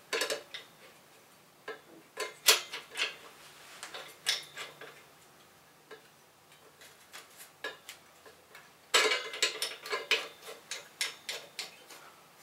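Irregular sharp clicks and light rattles from the telescope tripod's tension plate and its tensioning knob underneath being worked and screwed up, drawing the eyepiece tray tight against the legs. The clicks come in scattered groups, with a quick dense run near the end.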